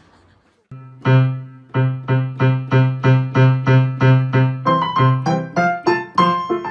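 Background music: a keyboard tune of evenly repeated struck notes, about three a second, starting about a second in, with higher melody notes joining later on.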